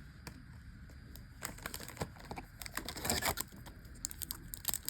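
Yu-Gi-Oh trading cards and booster packs being handled: scattered light clicks with a brief rustle about three seconds in.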